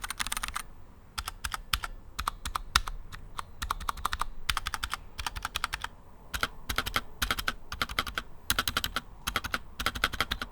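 Typing on a Xiaomi Yuemi MK01 mechanical keyboard with light linear TTC Red switches: quick runs of keystrokes broken by short pauses.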